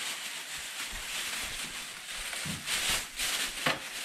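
Thin plastic grocery bags rustling and crinkling as they are handled, with a louder stretch about two and a half to three and a half seconds in.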